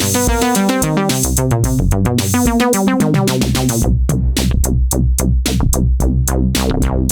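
Novation Peak synthesizer playing a resonant bass patch as a fast sequenced pattern of notes at 110 bpm, over a drum machine beat. About four seconds in the pattern changes and a deep, sustained low bass comes in underneath.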